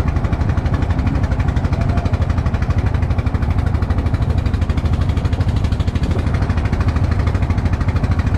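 Boat engine running steadily under way, a fast, even low chugging, with water rushing past the hull.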